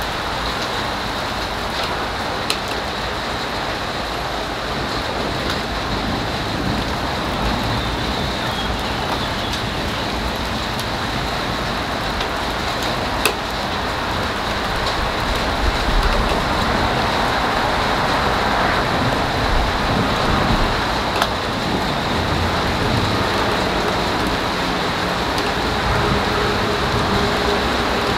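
Steady rain falling, with a few sharp drip ticks; it grows a little louder about halfway through.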